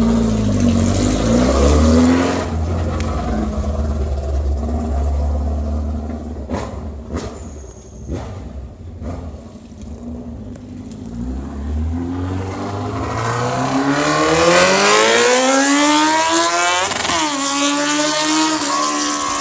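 Old-school Suzuki GSX-R sportbike's inline-four engine pulling away and fading into the distance, then accelerating hard back toward the listener, its pitch rising steadily through the revs with a brief drop near the end as it shifts gear.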